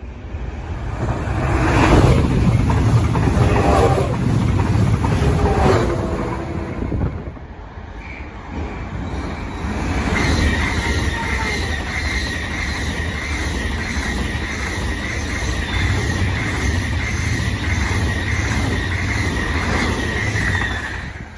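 Electric trains passing close: in the first seconds a train goes by loudly with a falling pitch, then from about ten seconds in an SBB RABe 502 FV-Dosto double-deck multiple unit rolls past with a steady high-pitched whine over a low rumble and an even clatter of wheels over rail joints.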